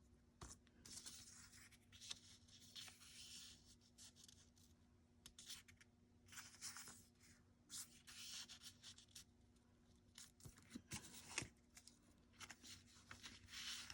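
Faint rustling and light ticks of paper scraps being handled and laid down, over a faint steady hum.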